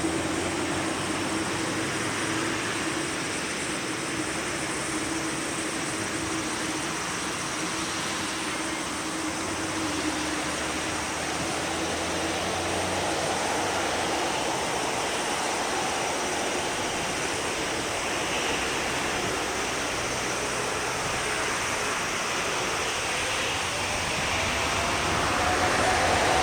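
Boeing 747-8 freighter's four GEnx jet engines at takeoff power, a steady roar, with a tone that rises in pitch near the end.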